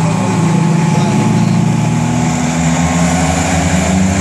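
V6 banger race cars' engines running hard on the oval, a loud, steady drone whose pitch shifts about halfway through as the cars come round.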